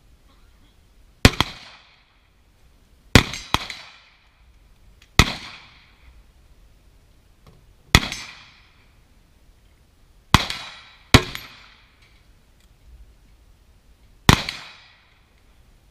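Carbine gunshots fired one at a time at an uneven pace, eight in all, some in quick pairs. Each shot is followed by a short echoing tail.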